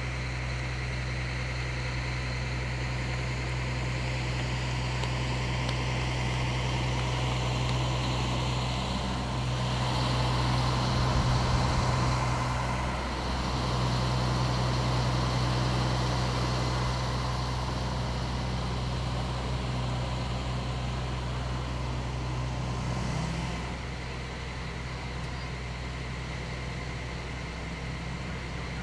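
Idling truck engine: a steady low hum that swells for a few seconds around ten seconds in and eases off a little near the end.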